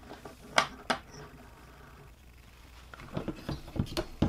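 Handling noise from capacitors and a DVR circuit board being picked up: two sharp clicks a little after the start, then a run of taps and rustles from about three seconds in as the board is lifted and turned in the hands.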